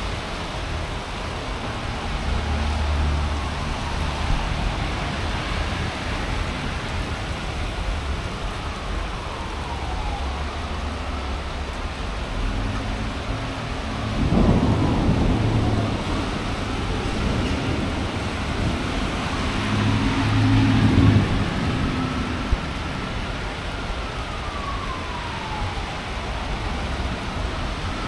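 Steady heavy rain with thunder: low rumbles, a sudden crack about halfway through that rolls into a rumble, and another rumble about three quarters of the way through. A siren wails faintly, rising and falling, under the storm.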